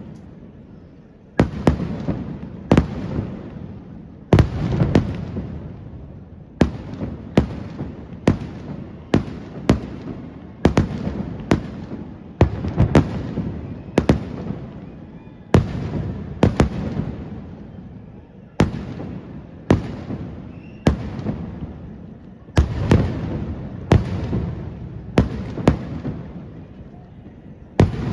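Aerial fireworks display: shells bursting in a rapid series, sharp bangs more than one a second, each trailing off into a rumbling echo.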